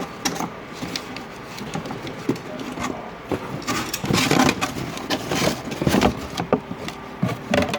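Irregular metallic clicks, clinks and knocks of hand tools and parts being handled during alternator removal and fitting work, louder and busier about halfway through.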